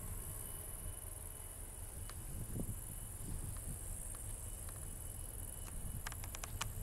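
Steady high chirring of insects in the grass over a low, distant rumble from an SM48 diesel locomotive approaching with a freight train. A quick run of about five sharp clicks comes near the end.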